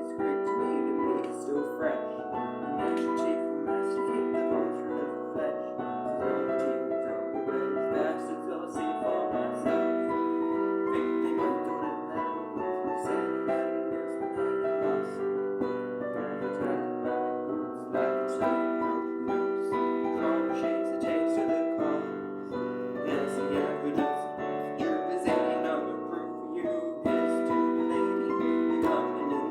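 Piano music: chords and melody notes played in the middle range, with little deep bass.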